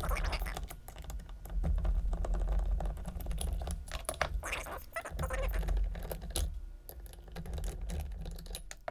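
Quick, irregular light clicks and taps of a screwdriver and small metal parts as the float bowls come off the 1983 Yamaha XJ750's carburetors, over a low steady hum.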